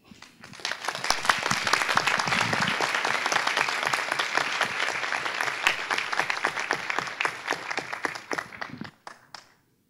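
Audience applauding, building within the first second, holding steady, then dying away near the end.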